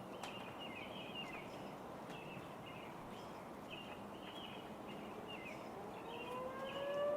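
Outdoor tornado warning siren starting to wind up about five seconds in, its tone slowly rising in pitch and growing louder. Before it, only a steady outdoor background hiss with small birds chirping.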